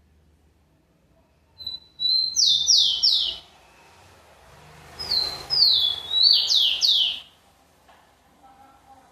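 Rufous-collared sparrow (tico-tico) singing two song phrases about three seconds apart, each of clear high whistled notes ending in three quick downward-slurred notes.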